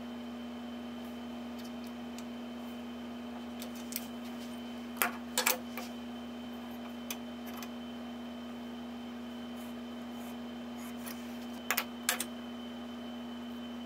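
Metal combination square being handled against a flat steel bar on a wooden bench: a few light clicks and taps, in two short clusters about seven seconds apart, over a steady background hum.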